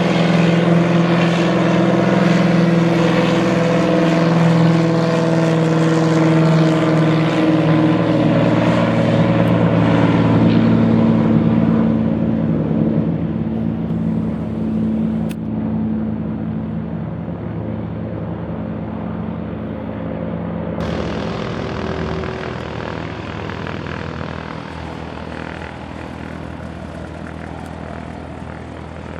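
A propeller airplane's engine droning loudly as it passes, its pitch sliding slightly lower. The sound fades gradually over the second half.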